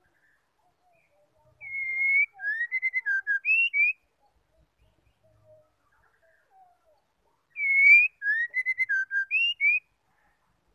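Female white-rumped shama singing: the same clear whistled phrase twice, about six seconds apart, each a long slightly rising whistle followed by a quick run of short notes, with faint soft notes in between.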